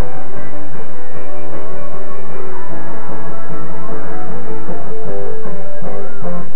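Live band music with guitar to the fore, in a rock style, with some gliding pitches in the middle of the passage.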